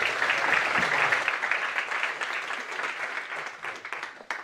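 Audience applauding, a dense patter of many hands clapping that slowly thins out, then cuts off suddenly at the very end.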